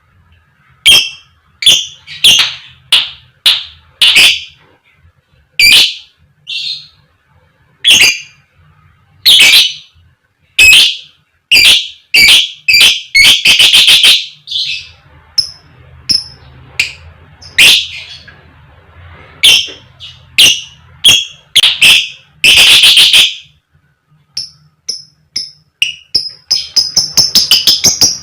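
A lovebird giving loud, sharp 'koek koek' and 'cik cik' calls: short single and paired shrieks at uneven intervals, then near the end a quick rattling run of calls about eight a second.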